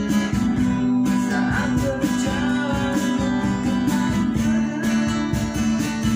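Acoustic guitars strumming and picking over a steady cajon beat: a band playing a pop song.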